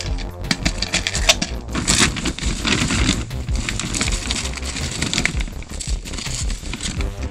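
Broken chunks of pinfire feldspar clinking and rattling against one another in a plastic bag, with the plastic crinkling; many quick, irregular clicks.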